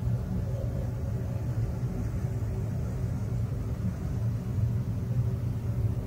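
Steady deep rumbling drone with a faint held tone above it, unchanging throughout: an ambient 'sound of space' track, electromagnetic emissions converted into audible sound.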